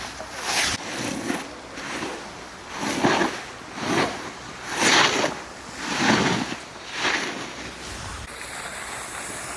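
Edges carving through snow in linked turns: a swish that swells and fades about once a second, over a steady rush of wind on the microphone.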